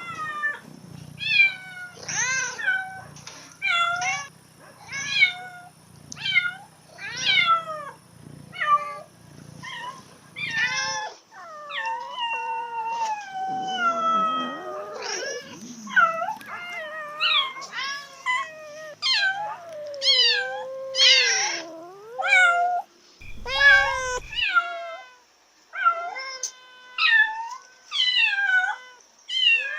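Cat in heat yowling: a quick run of short, loud meows that rise and fall in pitch, one to two a second, giving way partway through to several long, drawn-out wailing calls before the short meows return.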